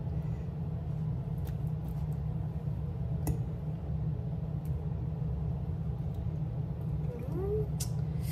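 A steady low hum, with a few faint clicks, a sharp knock about three seconds in and a short squeak near the end.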